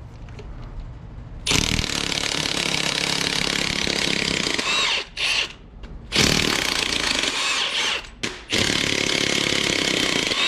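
Cordless Milwaukee half-inch impact wrench with a deep-well socket on an extension, hammering bolts loose on a GM 5.3 V8. It runs in three long bursts with short pauses between them.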